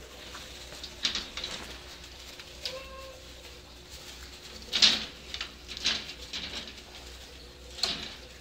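Dachshund-basset mix puppies playing on puppy training pads: scattered rustling and scratching of paws and bodies on the pads, with one brief faint squeak about three seconds in.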